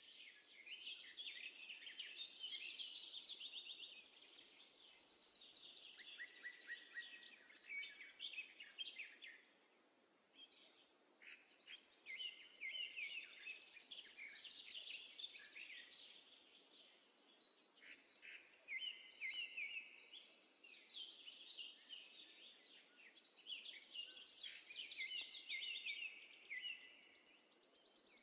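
Birds chirping and trilling in long bouts of song, with two short lulls between them.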